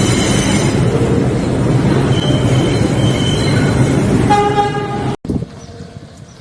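New York City subway train running loud through a station, with a short horn toot about four seconds in. The train noise cuts off abruptly about five seconds in, giving way to much quieter outdoor ambience.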